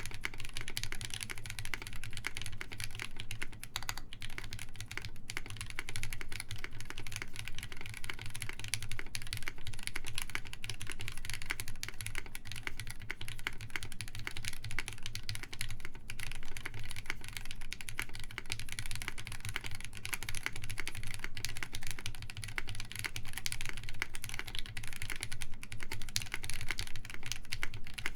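Steady fast typing on a Sperno59 mechanical keyboard: SP Star Meteor White switches lubed with 205g0, GMK keycaps, an FR4 plate and no case foam. It gives a continuous run of key clacks with only brief pauses.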